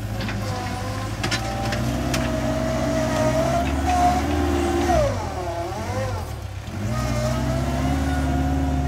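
TCM Tomfighter 808A mini wheel loader's engine running under load as the bucket digs into a dirt pile and lifts, with a whine that rises and falls with the revs. The revs sag about five seconds in and climb again a couple of seconds later.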